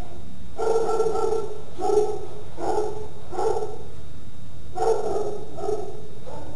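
Puppies barking at play: a run of short, repeated barks, about eight in all, with a brief pause partway through.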